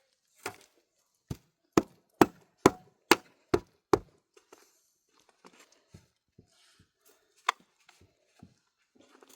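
A run of about eight sharp chopping strikes, roughly two a second, ending about four seconds in. Fainter, irregular knocks and clicks follow.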